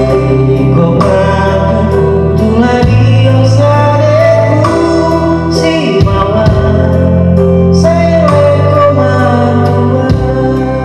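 Music: a song with singing over sustained bass notes and regular drum hits.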